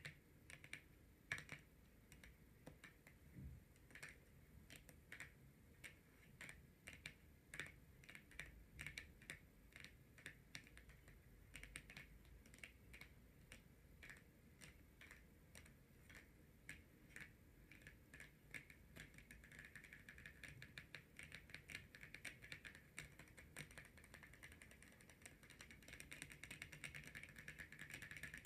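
Long natural fingernails tapping and clicking on tarot cards, quiet and crisp. The taps come scattered and irregular at first, then become a fast, continuous run of tapping about two-thirds of the way through.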